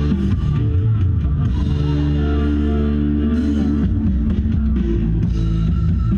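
Rock-style music with guitar and drums played loud through a large competition sound system, its sound heavy in deep bass, the bass line changing about four seconds in.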